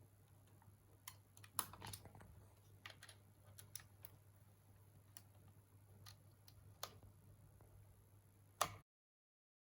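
Faint scattered clicks and ticks of small screws being driven with a screwdriver into a laptop's hard drive bay, over a low steady hum. The sound cuts out completely for about a second near the end.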